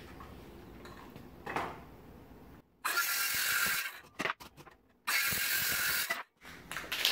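Circular saw cutting through old wooden fence boards. It comes in three short bursts of a second or so each, starting and stopping abruptly, the first about three seconds in.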